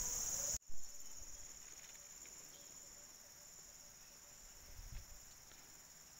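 Steady high-pitched drone of insects, dropping abruptly in level about half a second in, followed by a brief knock; a soft low thump near five seconds.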